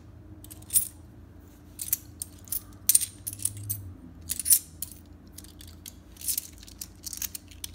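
Loose silver coins, half dollars among them, clinking against each other as they are picked up and stacked by hand: a string of irregular sharp clinks.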